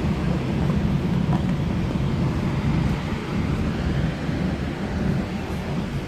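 Wind rumbling on the microphone: a steady low noise with no clear separate sounds.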